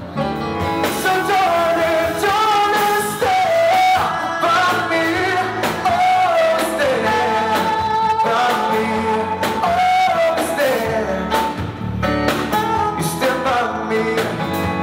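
Live band music: a male lead singer sings long, wavering melodic lines over electronic keyboards and a drum kit.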